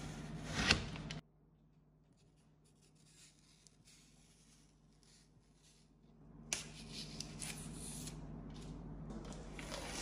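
Protective plastic film being peeled and crinkled off a new stainless-steel dishwasher front, in scattered rustles and crackles that grow busier in the second half. A steady low hum with a rustle cuts off abruptly about a second in.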